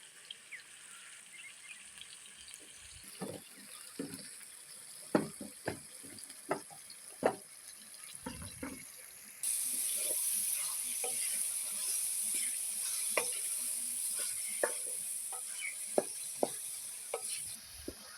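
Minced meat frying with ginger-garlic paste in a pan over a fire, a steady sizzle with a spoon knocking and scraping against the pan as it is stirred. The sizzle gets suddenly louder about halfway through and drops back shortly before the end.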